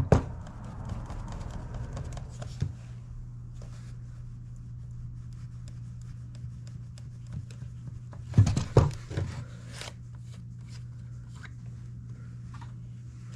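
Small clicks and scratchy handling sounds from working a battery chainsaw's bar-oil primer pump, with a louder cluster of knocks about eight and a half seconds in, over a steady low hum.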